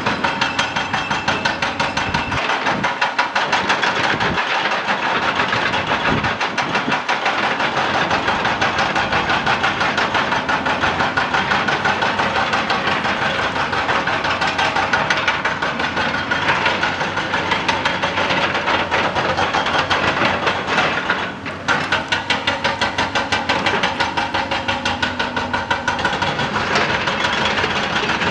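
Excavator-mounted hydraulic rock breaker hammering rock in a fast, steady stream of blows. It stops briefly about three quarters of the way through, then starts hammering again.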